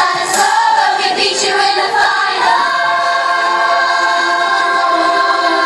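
Music with a group of voices singing, which settles about two and a half seconds in into one long held chord.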